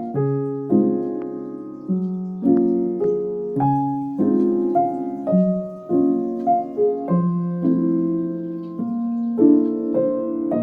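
Background music: soft piano chords played at a slow, gentle pace.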